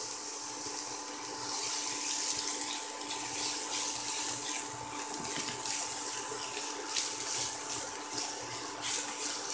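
Diced onion sizzling in hot olive oil in a nonstick pan: a steady frying hiss, with short scrapes as a silicone spatula stirs and spreads the onion. A faint steady hum runs underneath.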